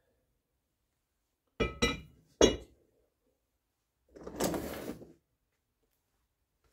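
Steel rifle barrel knocking three times with a metallic ring as it is lifted out of the wooden stock and laid down on a wooden workbench, followed by about a second of scraping rustle.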